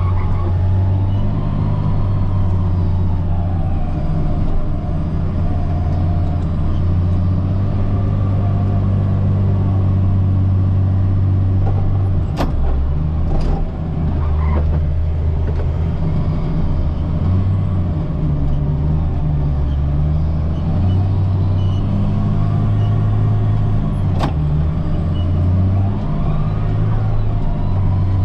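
Caterpillar 938G wheel loader's diesel engine running under load, its pitch shifting as the machine works. A few sharp knocks cut through: two close together about halfway through and one more near the end.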